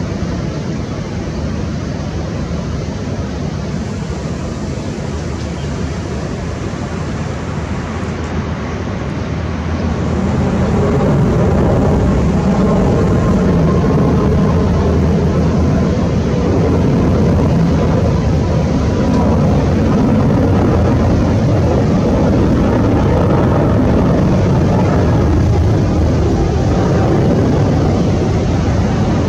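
A Boeing 777's twin jet engines at take-off power as the airliner climbs out: a loud, steady noise of engine sound that grows louder about ten seconds in and holds there.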